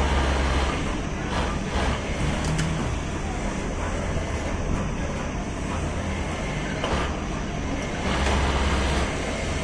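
Pegasus industrial sewing machine running in two short spells, briefly at the start and for about a second near the end, as a T-shirt neckline is topstitched. Under it runs the steady hum of a garment factory floor full of machines.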